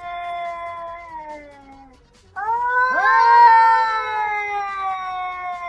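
Two domestic cats in a standoff, yowling at each other in long, drawn-out wails: territorial, threatening caterwauls. One yowl sinks and dies away about two seconds in, and a louder one starts soon after and slowly falls in pitch.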